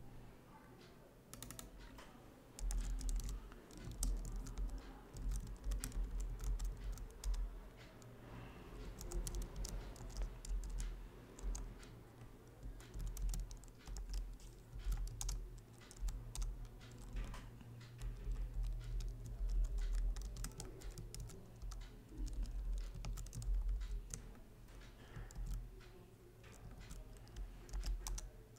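Typing on a computer keyboard: rapid, irregular keystroke clicks in runs, under a low rumble that comes and goes from a couple of seconds in.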